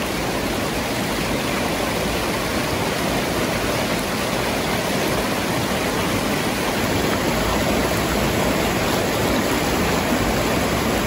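Rushing stream water, a steady, unbroken wash of noise.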